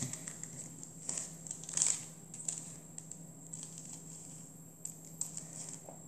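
Faint, scattered light clicks and rustles of a plastic 3x3 Rubik's cube being handled on a table, over a low steady hum.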